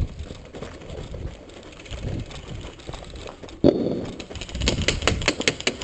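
Rustling of players' movement and gear, a sudden thump about two-thirds of the way in, then a quickening run of sharp clicks from airsoft guns firing.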